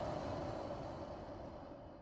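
A person's slow, deep breath in a meditative breathing exercise, loudest as it begins and gradually fading.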